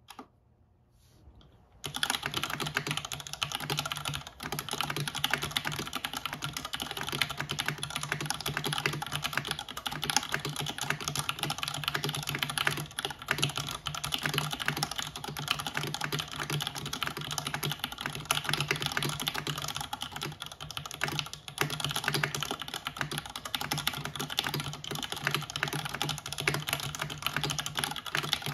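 Fast, continuous typing on a Time 80 Reforged mechanical keyboard (top-mount, full aluminium plate) with stock MX UHMWPE switches and doubleshot keycaps. It starts after a couple of faint clicks, about two seconds in, and keeps up a steady stream of keystrokes.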